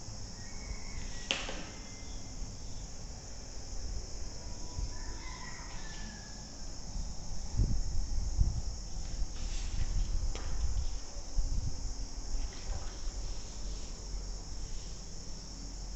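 Steady high-pitched background chirring, like insects, under faint low rumbles, with a single sharp click about a second in.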